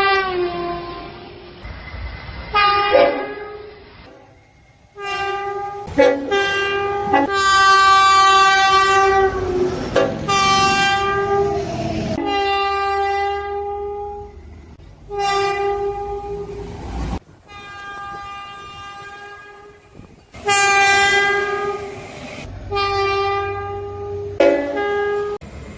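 Tilt Train sounding its town horn in a string of blasts, some short and some held two or three seconds, each a single steady note.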